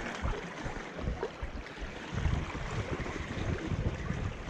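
Wind buffeting the microphone in gusts, heavier from about two seconds in, over the wash of the sea against the rocks.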